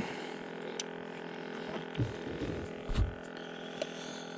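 Steady electric hum of a boat's livewell pump running, with a few soft knocks and clicks of fishing tackle being handled, the loudest about two and three seconds in.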